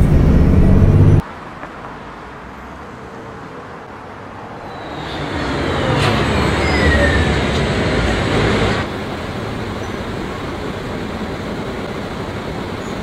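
Dubbed-in city bus and traffic sound. A bus engine drone cuts off abruptly about a second in, then road noise swells as a bus passes with a falling whine. The noise drops suddenly to a steady traffic hum near the end.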